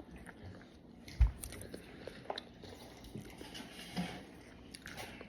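A person chewing a mouthful of green beans: faint chewing and small clicks, with one short dull knock about a second in.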